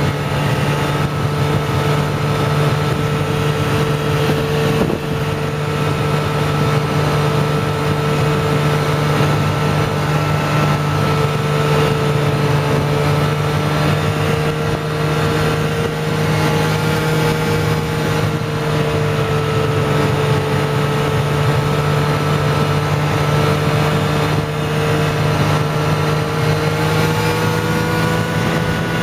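Snowmobile engine running at a steady cruising speed, heard from aboard the moving sled, its pitch rising slightly near the end.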